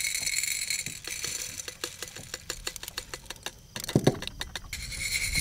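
Green coffee beans poured into a small ceramic hand coffee roaster, rattling and clicking against the clay in a quick, irregular patter, with a few ringing clinks near the end.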